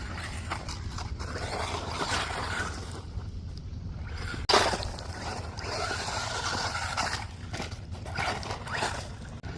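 WLtoys RC car being driven, its electric motor whining in swells along with tyre noise, over a steady low wind rumble on the microphone. About four and a half seconds in there is one sharp, loud knock.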